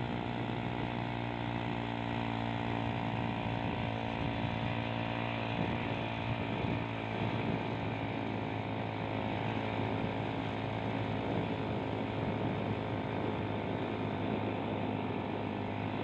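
A small engine running at a steady speed, a constant drone that holds unchanged throughout.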